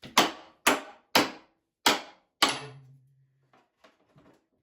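Hammer blows on a wooden toolbox, knocking it apart: five sharp strikes about two a second, the last leaving a short low ring, then a few faint knocks.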